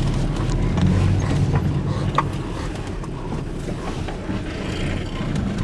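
Engine and road noise of a moving vehicle heard from inside its cab, a steady low rumble with a few faint clicks and rattles.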